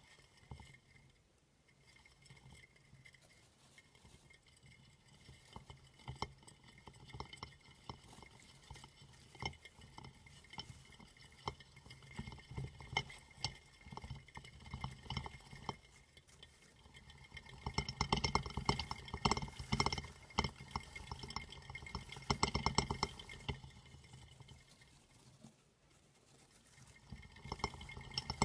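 A plastic flying-saucer hamster wheel clicking and rattling as two dwarf hamsters run on it, with the quick patter of their feet on the plastic. The clicking comes in fast runs, loudest for several seconds past the middle and picking up again near the end.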